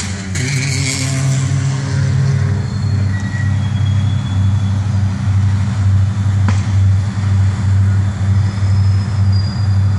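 Diesel freight locomotives throttling up to pull a stopped train back up to speed: a steady low engine drone that swells and dips. A hiss fades away in the first second or two, and there is one sharp click about six and a half seconds in.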